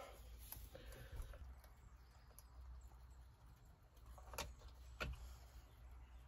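Near silence with two faint, sharp clicks about half a second apart near the end, from the red plastic locking tab on the airbag's wiring connector being pried and worked loose, over a low steady hum.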